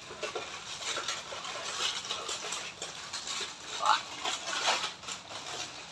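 Faint wet mouth sounds of a person chewing a betel quid, with scattered small clicks and a short rising sound about four seconds in.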